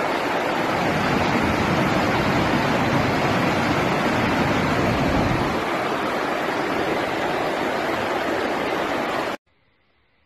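Flash-flood water rushing: a steady, loud, even rush of fast muddy floodwater. It stops abruptly near the end.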